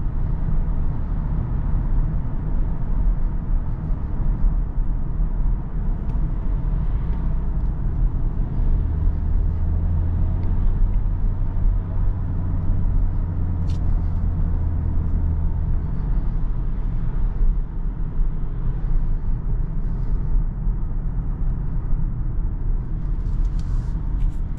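In-cabin driving noise of a Kia Sorento 1.6 T-GDI four-cylinder petrol hybrid: a steady low rumble of engine and tyres on a wet road. A deeper hum sets in for several seconds in the middle, and there is a single short click about two-thirds of the way through.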